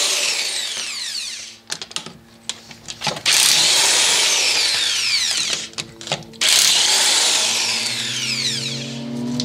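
Corded Milwaukee impact driver zipping the lug bolts off a car wheel in three runs of a couple of seconds each. The first run ends about a second and a half in, and the others start about three and six and a half seconds in. Each run is a loud hammering buzz that ends in a falling whine as the motor winds down, with short clicks and knocks between the runs.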